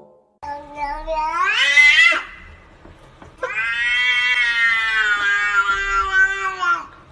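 Domestic cat meowing twice: a short call that rises in pitch, then a long drawn-out call that sags slightly at the end.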